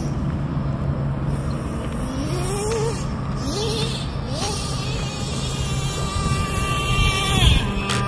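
Radio-controlled short course truck's motor revving: several quick rising runs, then a high steady pitch held for over a second before it drops off about seven and a half seconds in, over a low steady drone.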